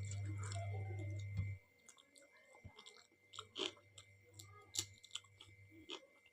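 Close-up mouth sounds of someone chewing dal and rice: scattered wet clicks and lip smacks. A loud low hum runs under the first second and a half and cuts off suddenly.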